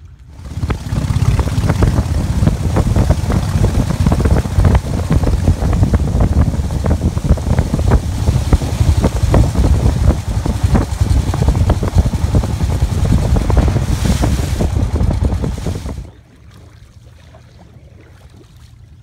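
Loud, buffeting rush of wind on the microphone from a boat moving across open water. It cuts off suddenly near the end, leaving only low background noise.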